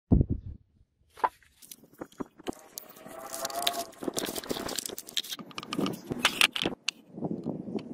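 A short, loud low boom right at the start, then paper crinkling and rustling with sharp snips and ticks as scissors cut out a paper knife template and hands press it flat.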